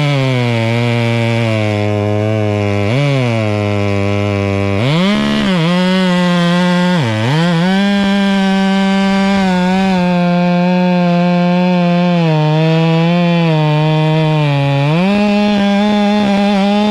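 Two-stroke chainsaw cutting into an oak trunk, held mostly at high revs. The engine note is lower for the first few seconds, climbs at about five seconds, dips sharply at about seven seconds, and sags lower again late on before rising back near the end.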